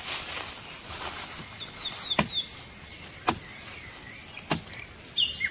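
Three sharp machete chops into a woody water vine, about a second apart. Small birds chirp between the strokes.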